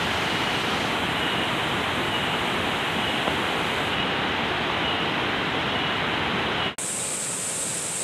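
Steady rushing of a waterfall and rocky stream, an even wash of water noise. Near the end it cuts suddenly to a brighter, hissier stretch of water sound.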